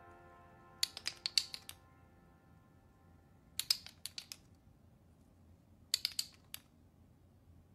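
Jacob's ladder toy's blocks clacking against each other as they tumble down their ribbon hinges: three quick runs of clicks, a couple of seconds apart, each time the top block is flipped.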